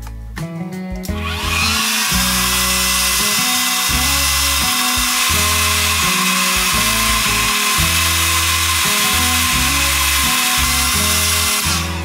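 Vitex hair dryer switched on about a second in, its motor whirring up to speed, then blowing steadily with a loud rushing hiss until it is switched off near the end. Guitar music plays underneath.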